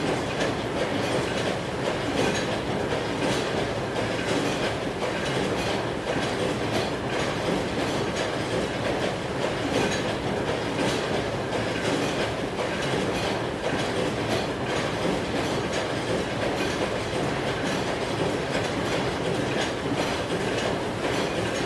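Steady mechanical rattling and rumbling, like heavy machinery or a train running continuously, with a faint regular clatter and no change in level.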